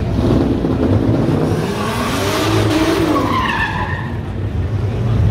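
Drift car with its engine revving up and back down. Tyres squeal and skid through the middle, about two to four seconds in.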